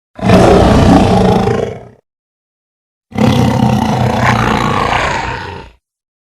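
Two designed roars for a robotic raptor, shrill and metallic yet animal-like layered over a low rumble, the first about two seconds long, the second, about three seconds in, slightly longer and ending in a fade.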